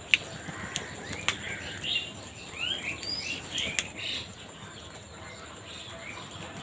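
Birds calling: a run of short, quick chirps, strongest from about one and a half to four and a half seconds in, with a couple of sharp clicks near the start.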